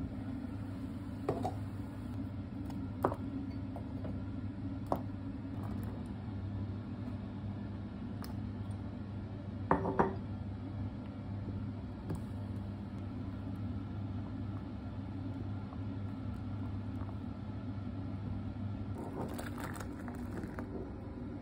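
Cooking at the stove: a glass pot lid, a ladle and a metal saucepan clinking now and then, loudest about ten seconds in and again near the end, over a steady low hum.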